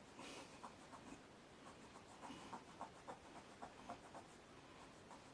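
Faint rubbing of a spit-moistened cloth over a radio knob's face, wiping off the excess pen ink so only the recessed lettering stays filled: a run of short, irregular scratchy strokes.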